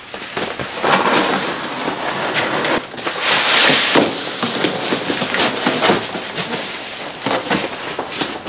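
Cardboard shipping box being opened: a box cutter slicing through the packing tape, then the cardboard flaps pulled back and an inner box and foam blocks slid out, with scraping, rustling and knocks of cardboard. The scraping is loudest about three to four seconds in.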